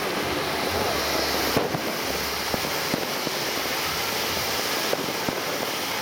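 Ground firework fountain spraying crackling sparks: a steady hiss with scattered small crackling pops.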